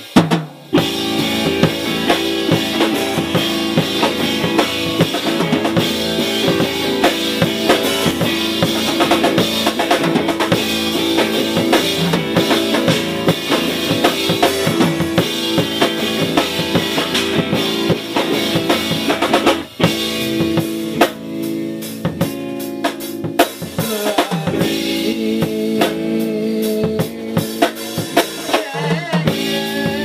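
Instrumental background music with a steady drum-kit beat, bass drum and snare over sustained pitched instruments.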